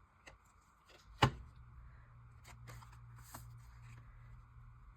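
Paper and craft tools being handled on a table: light clicks and rustles, with one sharp tap a little over a second in. A low steady hum comes in just after the tap.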